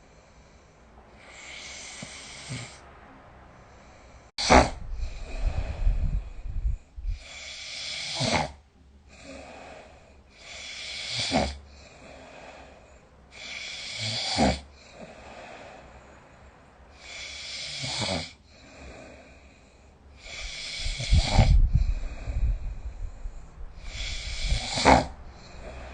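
A sleeping person snoring, about eight breaths roughly every three seconds. Each breath is a rising rasp that ends in a short, sharp snort. Twice the snore runs longer and deeper, with a low rattle.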